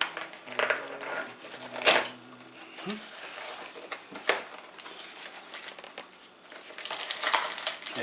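Small metal and plastic hardware from a CPU liquid cooler's accessory box (brackets, screws, a screwdriver) clinking and clattering as it is taken out and set down. The clicks are scattered and sharp, the loudest about two seconds in, with a busier run of clicks near the end.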